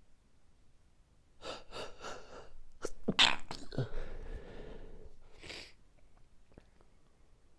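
A person sneezing in an allergy sneezing fit: a few short breaths, then a loud sneeze about three seconds in, and a shorter breathy sound near the end.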